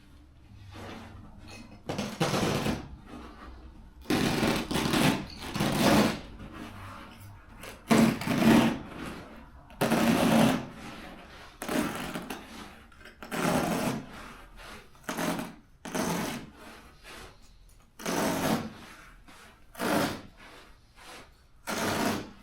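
Utility knife slicing through carpet and its backing in repeated strokes, each a short rasping rip, about one every second or two.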